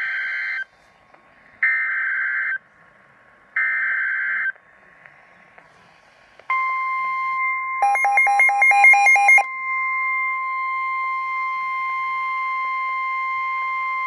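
NOAA Weather Radio emergency alert coming through a Midland WR120 weather radio: three short, screechy bursts of SAME digital header data about two seconds apart, then after a short pause the steady Weather Radio warning alarm tone, which runs on to the end. About a second after the tone starts, the radio's own alert beeps rapidly over it for about a second and a half, signalling a tornado warning.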